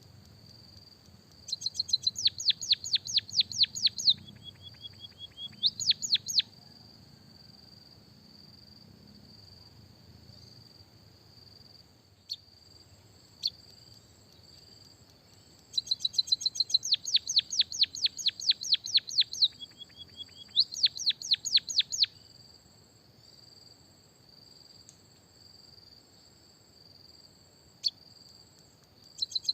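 White-headed munia singing canary-style fill: two bouts of fast, repeated high sweeping notes, several a second, each broken by a short lower held note. A steady high whine runs underneath.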